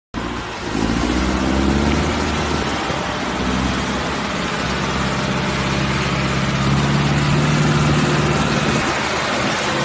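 Several diesel farm tractor engines running together under heavy load as they pull in a chained line through soft ploughed ground, a steady, loud engine drone whose pitch shifts a little as they work.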